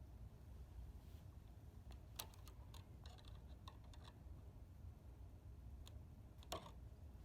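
Faint, scattered clicks and taps of hand tools and wire being handled, the loudest near the end.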